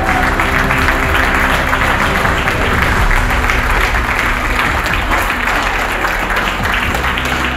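A large audience applauding steadily, with music playing underneath.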